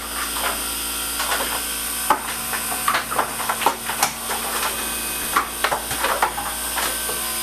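Ice cubes dropping and clattering in a run of irregular knocks as a Hoshizaki ice machine harvests, over the steady hum and hiss of the running machine.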